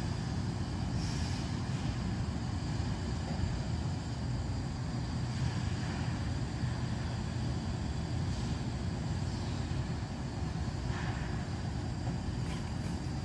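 Top-lit wood gasification stove burning hard, a steady low rumble of flames and draft with no breaks: the stove in its secondary, gas-burning stage.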